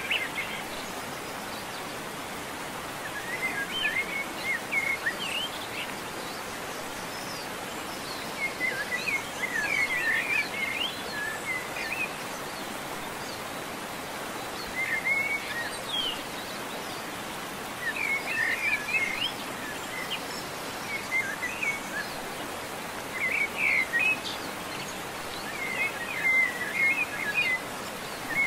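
Steady background hiss with short bursts of chirping, like small birds, coming in clusters every few seconds.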